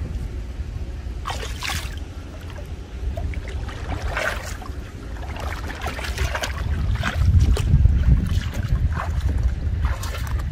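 A person wading through shin-deep water, with irregular splashes and sloshing at each step, and a low rumble of wind on the microphone that swells in the second half.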